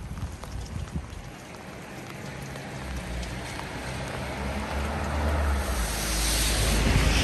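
Rain pattering on the street in small scattered drops. A rushing noise with a low rumble swells from about three seconds in and is loudest near the end.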